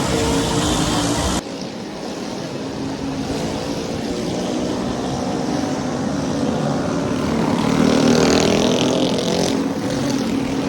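Vehicle engines running in road traffic, steady with a slight swell near the end, after an abrupt cut about a second in.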